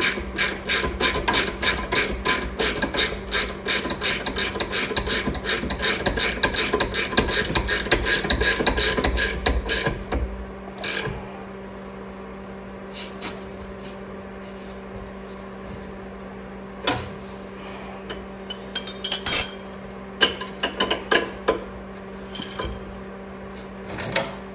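Ratcheting wrench clicking quickly and evenly, about four to five clicks a second, as a nut is run down on a traction arm's bolt; it stops about ten seconds in. After that come scattered metal tool clinks and a brief clatter, over a faint steady hum.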